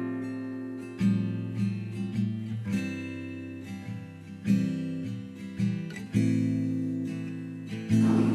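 Background music: acoustic guitar strumming chords, each strum ringing out and fading before the next.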